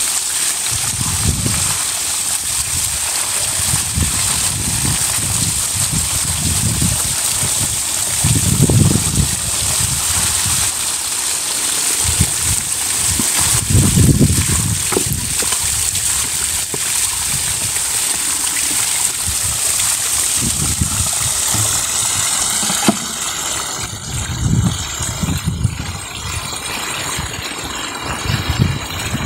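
Water rushing and splashing into a wheelbarrow as dyed sheep's-wool skeins are rinsed in it, with irregular low rumbles. The steady rush stops about 22 seconds in, leaving quieter sloshing and water being poured in from a bucket.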